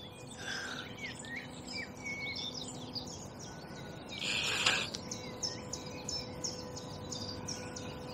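Songbirds chirping and singing, with a quick run of repeated high chirps in the second half. A brief scratchy, noisy burst comes about four seconds in.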